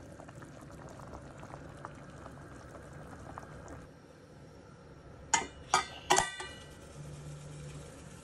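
Pork and mung beans boiling in a pressure cooker with a fine bubbling crackle for about the first four seconds. About five seconds in come three sharp metallic clanks with a brief ring as the pressure cooker's weight is set on the lid's vent.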